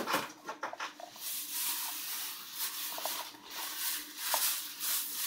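Handling noise: light rustling with a few soft clicks and taps as a mustard-coated metal tube is turned and set down in a plastic tub on filter padding.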